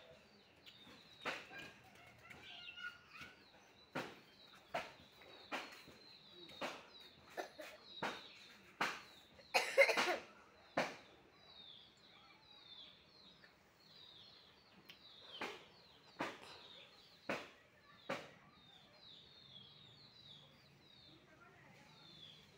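Ducklings peeping: many short, high, falling peeps, with sharp clicks or taps about once a second and a louder burst of noise about ten seconds in.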